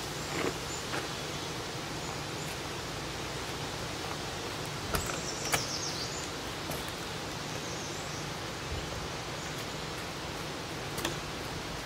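Steady outdoor background hiss with a few short clicks and knocks. The loudest come about five seconds in, as the camper's entry door is unlatched and swung open.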